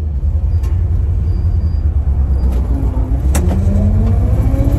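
A 1983 Chevrolet C6500 truck's engine rumbling heavily, heard from inside the cab. About halfway through, its pitch starts rising steadily as the truck accelerates, and there is one sharp click.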